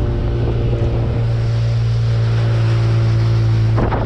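Small boat's outboard motor running steadily under way, with water and wind noise. The motor is low on fuel and makes what the driver calls a different noise, which he takes for the gasoline about to run out. There is a brief knock near the end.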